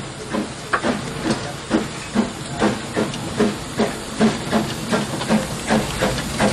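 Small two-foot-gauge Henschel narrow-gauge steam locomotive working under steam, its exhaust chuffing in a steady rhythm of about two and a half beats a second over a continuous hiss of steam.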